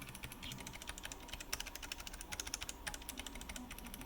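Fast, steady typing on a 3D-printed mechanical keyboard: a quick run of clicky keystrokes on unlubricated switches with cheap temporary keycaps. A faint steady hum underneath comes from a 3D printer running.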